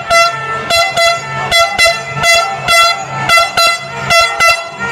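Handheld air horn sounded in a string of short blasts, about a dozen in a quick, uneven rhythm, each on the same high steady tone.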